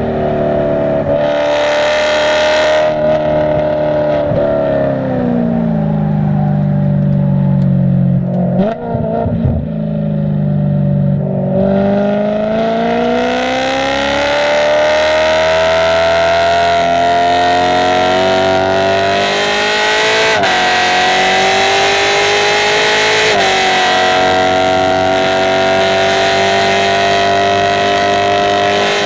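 Car engine on a track lap: its revs fall steadily over several seconds, then climb hard under acceleration and hold high, with a couple of brief jumps in pitch.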